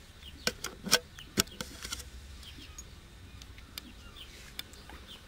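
A quick run of sharp clicks and knocks in the first two seconds, over faint high chirps.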